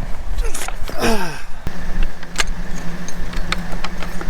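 Farm tractor engine running, with scattered metallic clinks and taps as unhooked harrow gear is hooked back up; a steady hum sets in a little under two seconds in.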